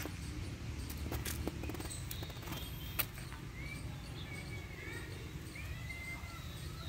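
Outdoor ambience: scattered crackles and clicks of steps on dry leaves, with a few short high chirps about halfway through, over a low rumble.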